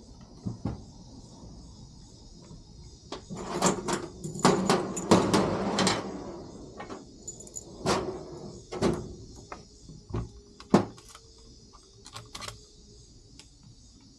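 Clatter and knocks of tools and parts being handled on a workbench. A dense run of rattling knocks comes about four seconds in, then single sharp knocks a few seconds apart.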